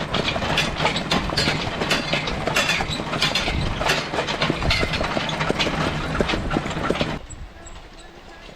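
Steel excavator track dragged over the ground behind a team of draft horses, a continuous clanking, scraping rattle of metal links. It stops abruptly about seven seconds in.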